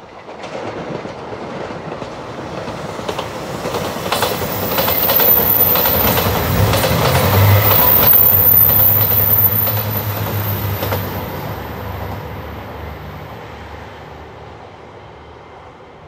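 JR Shikoku 2700 series diesel multiple unit passing at speed. Its diesel engines hum and its wheels clack over the rail joints; the sound builds to its loudest about halfway through, then fades away.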